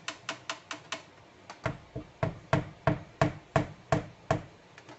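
Koblenz espresso machine's body being knocked repeatedly to shake loose leftover coffee grounds: light quick taps at first, then about a dozen heavier knocks, roughly three a second.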